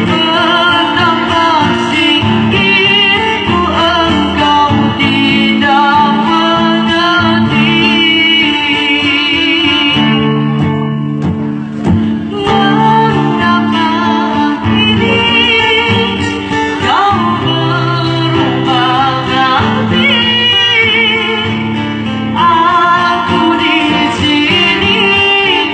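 A woman singing a wavering, ornamented melody into a microphone, accompanied live by a strummed and plucked acoustic guitar. The voice drops out briefly about ten seconds in while the guitar carries on.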